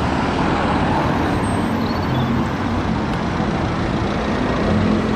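Double-decker city bus engine running, amid steady street traffic noise; the low engine hum grows a little stronger near the end.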